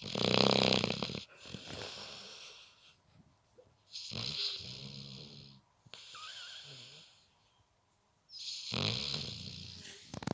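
Snoring: three slow breaths, each a low rattling snore followed by a softer airy breath, the first snore the loudest.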